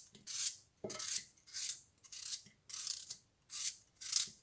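A kitchen knife cutting a raw radish into coarse chunks: a crisp crunching slice repeated about twice a second, with a knock of the blade on the board about a second in.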